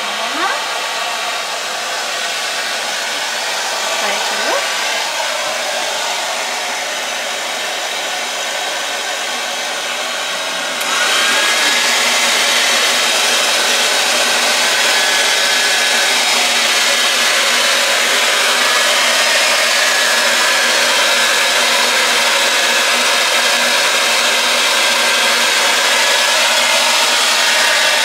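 Hand-held hair dryer running steadily; about eleven seconds in it jumps louder and brighter and then holds there.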